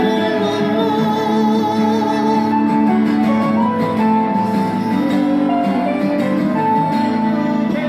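Instrumental passage of a live pop song cover, led by guitar, with no vocal line.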